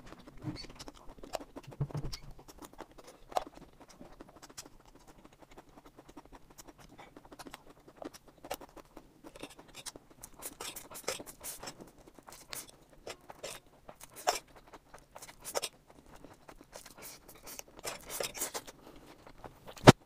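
Close-miked eating sounds: a woman slurping and chewing dry fried noodles, with chopsticks clicking and scraping against the tray. The sounds come as a run of short soft clicks and smacks, busier in the second half, with one sharp click near the end.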